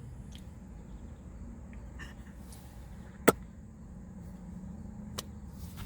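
Low steady background noise with a sharp click about three seconds in and a smaller click near the end.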